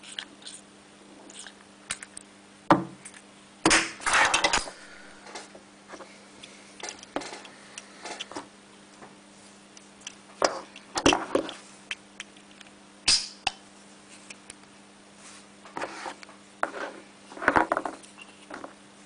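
Small metal objects clicking and clacking against a strong magnet as they snap onto it and are pulled off, in scattered bursts of sharp clicks and short clatters. A faint steady hum runs underneath.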